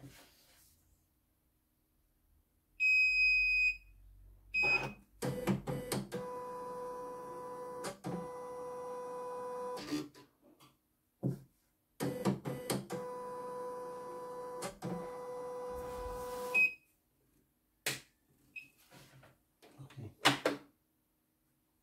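CNY E900 computerized embroidery machine gives a loud beep lasting about a second, then its motor runs twice for about four to five seconds each time with a steady whine. Short beeps and clicks come between the runs and near the end.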